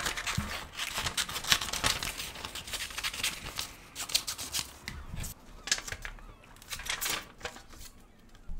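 Scissors snipping through a sheet of paper, cutting out a template, with a quick run of snips and paper rustles. About five seconds in they thin out to a few quieter handling sounds.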